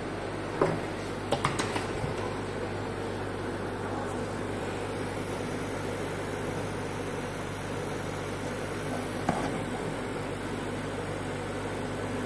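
A steady mechanical hum with a low drone, broken by a few light clicks and knocks: one about half a second in, several between one and two seconds in, and one more about nine seconds in.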